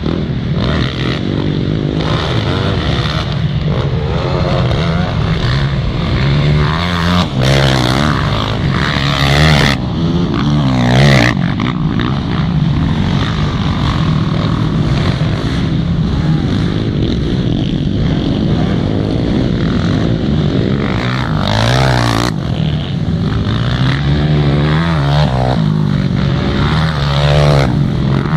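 Racing quad bikes' engines at full throttle, the pitch climbing and falling again and again as the riders accelerate, shift and back off through the corners, with more than one machine running at once.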